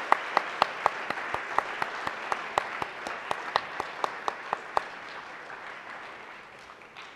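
Audience applauding, with one nearby pair of hands clapping sharply about four times a second. The close clapping stops about five seconds in, and the applause dies away near the end.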